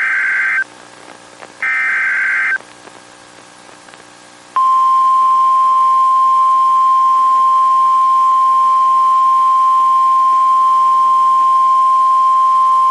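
NOAA Weather Radio SAME alert header: warbling digital data bursts about a second long, a second apart. About four and a half seconds in, the steady 1050 Hz warning alarm tone begins, sounding the start of a tornado warning.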